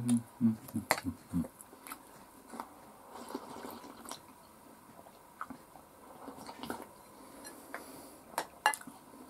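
Close-up eating sounds: chewing, with slurping of soup drunk straight from the bowl, and a few sharp clicks of the spoon against the bowl near the end.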